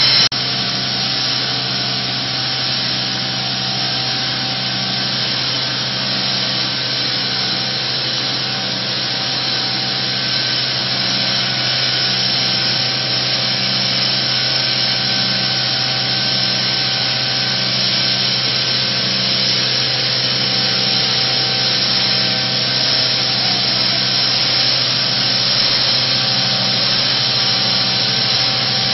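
Walinga UltraVeyor UV60 pneumatic grain conveyor running at full work, conveying seed grain. It makes a steady loud hum under a dense hiss of air, with a faint regular pulsing in the hum.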